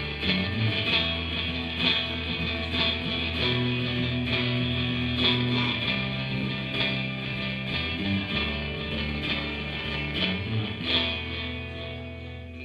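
Rock band playing an instrumental passage live: electric guitar over sustained low notes, with drums and cymbals keeping time. The music starts dying away near the end.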